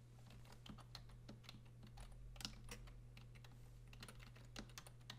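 Faint typing on a computer keyboard: irregular key clicks, some louder than others, over a low steady hum.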